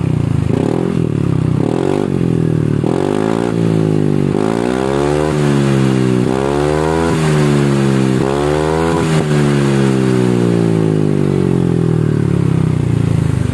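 Yamaha NMAX scooter's single-cylinder engine revved through its stock muffler, which has been gutted and fitted with a filter insert: about ten quick throttle blips a second or so apart, the pitch climbing and dropping each time, then a long slow fall back to a steady idle near the end.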